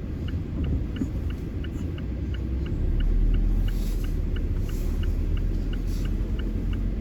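Car cabin rumble of the engine and tyres while driving on a snowy road, growing louder about three seconds in. A light, even ticking about three times a second runs through it.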